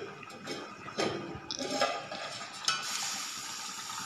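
A steel lid knocks and clinks against a clay cooking pot as it is lifted off with a cloth, followed by a steady hiss from the uncovered curry simmering over the gas flame from about three seconds in.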